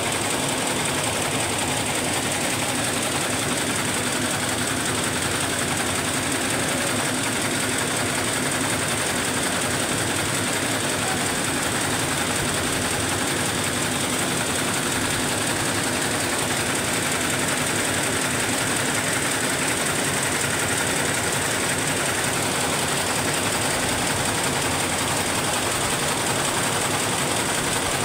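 Jacquard narrow-fabric looms weaving elastic tape, running with a steady, fast mechanical clatter.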